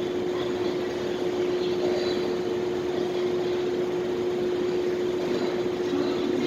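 Parking lot ambience: a steady hum holding one constant tone over a wash of even noise, with nothing standing out.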